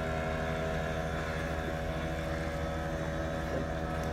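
Boat engine running steadily at a constant pitch.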